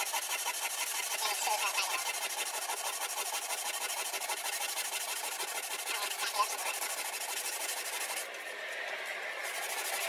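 Wire wool scrubbing shellac off the clock's wooden case: a steady, dense scratchy hiss of rapid rubbing strokes. The high part of the hiss thins briefly near the end.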